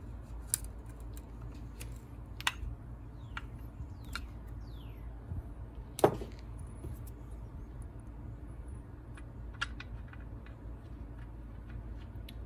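Scattered light clicks and taps of hand tools and screws on the cut-off saw's top cover as it is tightened down, with one sharper knock about six seconds in, over a steady low hum.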